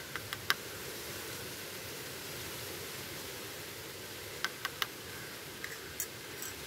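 Light clinks of a tiny metal spoon against a miniature steel pan and bowl as spices are added and stirred. There are a few quick clinks at the start, a cluster about four and a half seconds in, and a couple near the end, over a steady hiss.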